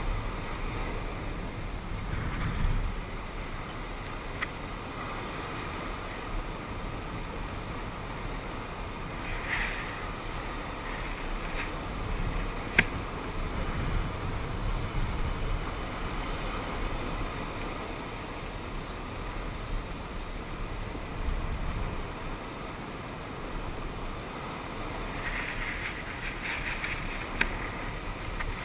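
Ocean water washing steadily, with slow low swells and short splashy bursts now and then. A single sharp click about halfway through is the loudest moment.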